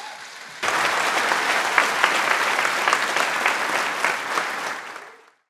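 Audience applauding: a dense clatter of many hands clapping that starts suddenly about half a second in, holds steady, then fades out near the end.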